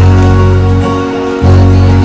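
Music: held chords over a loud deep bass note, with the bass changing to a new note about one and a half seconds in.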